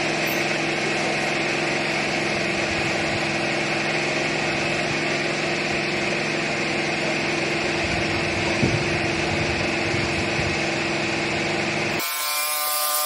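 A small engine running steadily, a constant hum with a few held tones over a wash of noise. About a second before the end it cuts to a ringing electronic sound effect.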